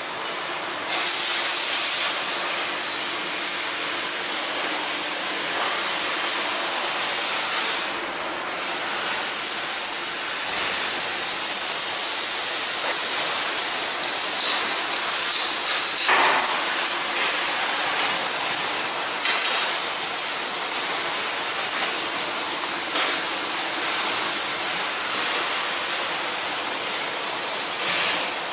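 Positive-and-negative (reverse) twist barbed wire machine running, a steady noisy rush with faint mechanical clicks now and then as it twists the strand wire and wraps the barbs.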